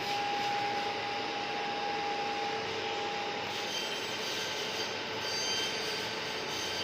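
Daikin air conditioner running: steady fan and airflow noise with a thin steady whine that stops about halfway through.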